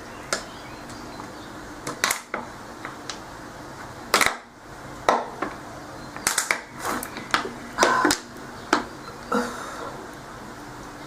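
A young woman hiccuping over and over: about a dozen short, sharp hics at uneven intervals, some coming close together, the loudest about four seconds in.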